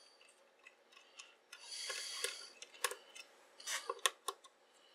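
Small screwdriver turning the captive screws out of the back of an analog multimeter's case: scattered small clicks and ticks, with a short scraping rasp about two seconds in.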